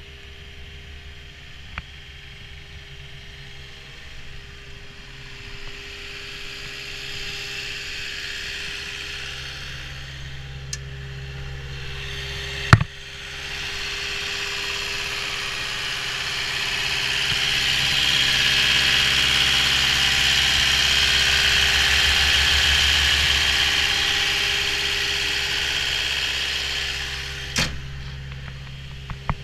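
Caterpillar 279D compact track loader's diesel engine idling steadily. It grows louder through the middle, with a strong rushing hiss close to the open engine compartment, then eases off. A sharp knock comes a little before halfway, and a smaller one near the end.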